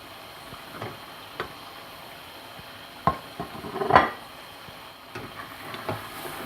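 A spoon knocking and scraping against a cooking pot while tinda are stirred through masala: several sharp knocks, the loudest about four seconds in, over a steady low hiss.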